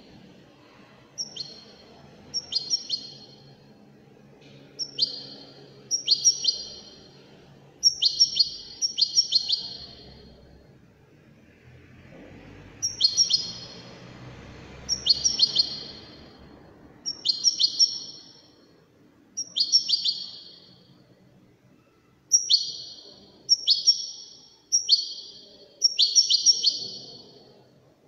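European goldfinch of the Moroccan 'widani' type singing: short phrases of rapid notes sweeping down in pitch, repeated every second or two, with a longer pause about ten seconds in.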